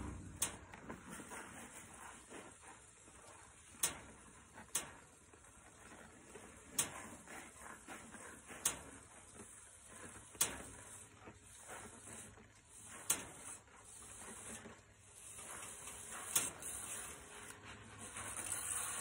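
Plastic water jug with its bottom cut off being worked up out of a snug fit in a seed spreader's bag: a faint rubbing, broken by about eight sharp knocks and clicks spaced a second or two apart. A hiss builds near the end.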